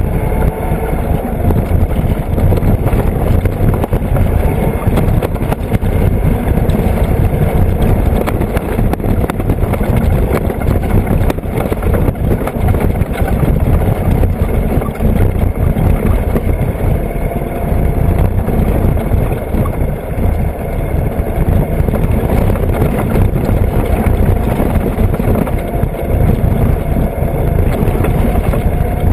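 Vehicle driving on a rough dirt road: a loud, steady rumble of engine and road noise heard from the hood, with the engine's pitch shifting a little now and then.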